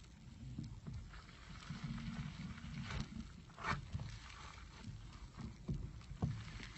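Crunchy slime being squeezed and pressed by hand: irregular crackling and squishing, with a few louder crackles.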